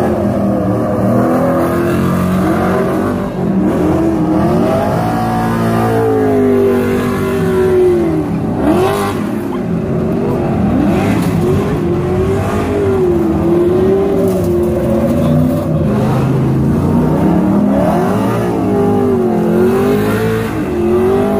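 Off-road race trucks' engines revving up and down as they drive hard around a dirt track, with more than one truck heard at once at times.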